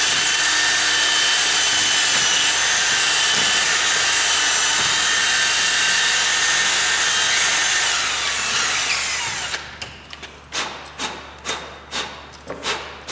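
Power drill running steadily at speed, its bit used side-on to grind wood out of the deadbolt's bolt hole in the door frame. About eight seconds in it winds down with a falling whine and stops, followed by a run of short sharp taps about two a second.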